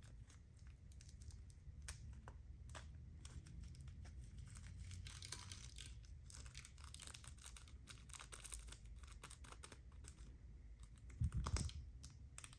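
Slime being handled and worked up close, giving a faint run of small clicks and crackles, with a louder dull bump near the end.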